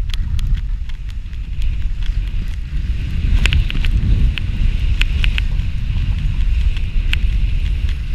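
Wind buffeting a chest-mounted GoPro's microphone during a fast ski run, a steady loud rumble, with skis hissing over hard-packed snow and scattered sharp clicks.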